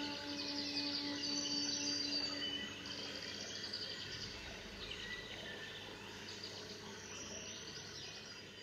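Solo flute holding a low closing note that fades out about three seconds in, over steady high-pitched chirping in the background that carries on after the note ends.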